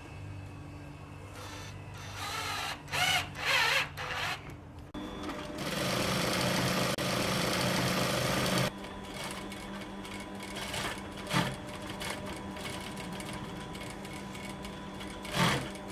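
Sewing machine stitching the shade-cloth curtain: a few short, loud bursts about two to four seconds in, then a steady run of about four seconds that stops abruptly, then quieter steady running with a few sharp clicks.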